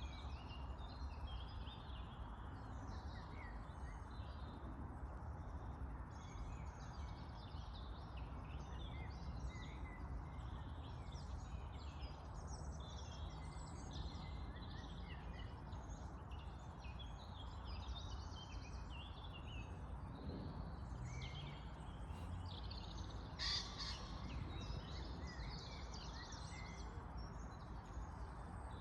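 Many birds chirping and calling at once, a dense chorus of short calls, over a steady low rumble of outdoor background noise, with one louder sharp sound about two-thirds of the way through.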